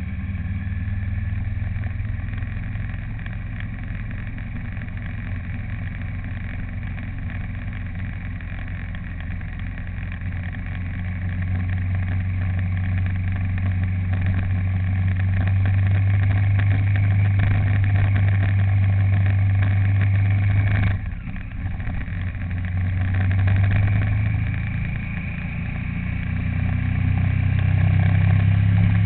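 A vehicle engine running steadily while driving, with road noise. Its hum grows louder over the stretch and dips briefly about two-thirds of the way through before picking up again.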